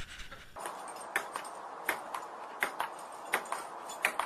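Table tennis ball clicking on the table and paddles: sharp ticks in quick pairs, about one pair every 0.7 s, starting about half a second in.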